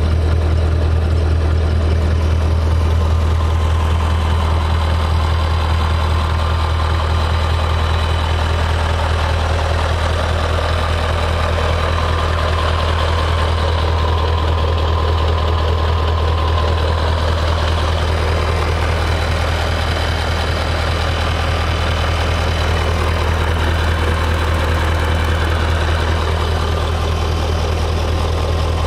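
Scania R144G truck's V8 diesel engine idling steadily, a constant low hum with no revving.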